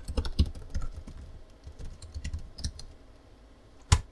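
Typing on a computer keyboard: a quick run of key clicks, then one louder key press near the end as the Enter key runs the command.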